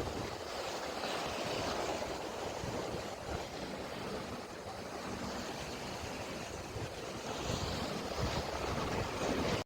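Sea waves washing on the shore in a steady wash, with cold wind gusting and buffeting the microphone in uneven low rumbles.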